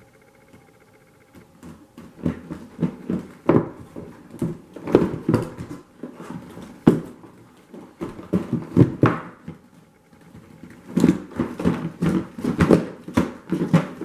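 Cardboard retail box being handled, and its printed outer sleeve slid off the inner box: irregular scraping and rubbing of cardboard, with a short lull about ten seconds in.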